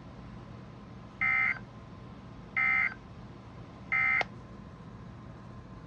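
Emergency Alert System end-of-message code: three short, identical bursts of SAME digital data tones, about a second apart. They mark the end of the flash flood warning broadcast, and a click comes at the end of the last burst.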